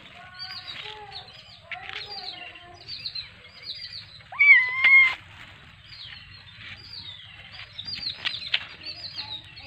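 Kittens mewing and pulling at a rustling plastic bag of food, with one loud meow lasting most of a second about four and a half seconds in. Small birds chirp rapidly in the background.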